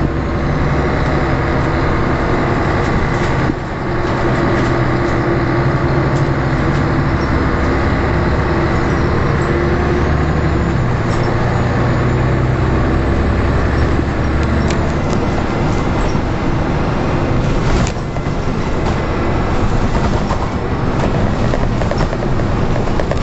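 Scania L113 bus's rear-mounted diesel engine running hard, heard inside the saloon as the bus pulls away and accelerates. Its pitch shifts several times, with brief drops in level about three and a half seconds in and again near eighteen seconds.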